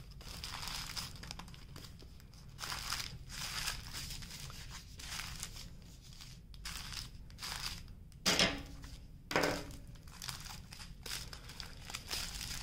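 Small clear plastic bags of diamond painting drills crinkling as they are handled and shuffled, in a string of irregular rustles, with two louder crackles about eight and nine seconds in.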